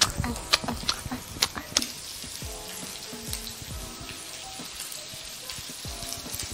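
Meatballs sizzling steadily as they brown in hot oil in a frying pan, with a few sharp clicks in the first two seconds.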